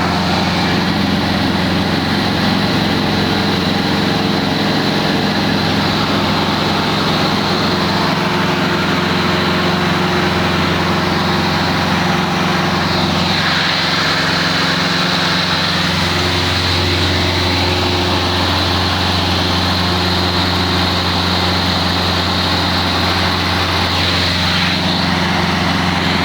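Light-aircraft piston engines running steadily during a group take-off, mostly Zlín trainers. The tone sweeps as aircraft move past, once about halfway through and again near the end.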